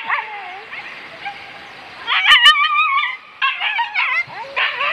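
Several boar-hunting dogs yelping and howling, with short overlapping yelps around one long, wavering howl about two seconds in. Two sharp clicks come during the howl.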